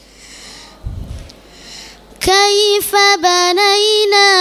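A boy's voice reciting the Quran in a melodic, sung style, maqam bayati, through a microphone: a pause with a soft breath into the microphone, then a little over two seconds in he starts a loud, long held note with small ornamental turns.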